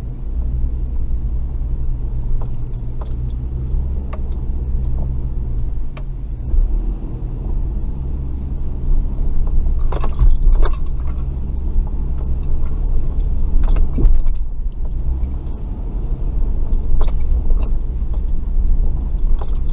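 Off-road truck's engine running low and steady while it crawls over rough trail, with knocks and rattles from the body and loose contents jolting, sharpest about six, ten and fourteen seconds in.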